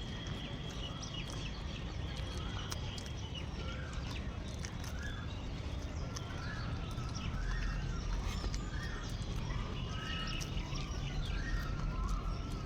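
People chewing and eating, with frequent small mouth and food clicks, over a steady low rumble; birds call and chirp in the background through much of it.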